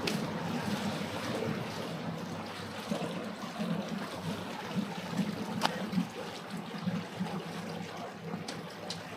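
Water lapping and trickling, with a low uneven hum underneath and a couple of faint clicks.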